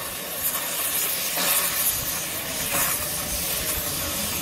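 Steam launch venting steam with a steady hiss that swells and eases a little.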